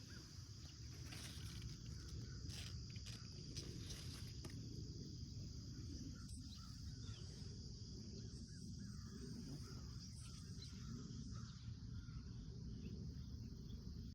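Steady high-pitched chorus of crickets or other insects over a continuous low rumble, with a few faint clicks in the first few seconds.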